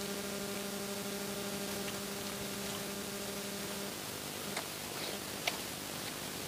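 Steady rain hiss, with a low hum that stops about four seconds in and a couple of small eating clicks near the end.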